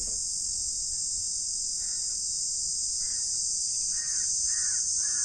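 Steady high-pitched drone of insects, with a crow cawing in a series of short calls starting about two seconds in.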